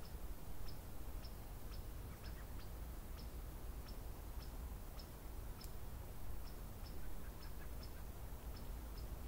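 Open-field ambience: a steady low rumble with short, high ticks or chirps repeating about twice a second.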